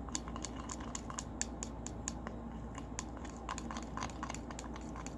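Slime glue being stirred with food colouring in a bowl: light, irregular clicks and scrapes, several a second.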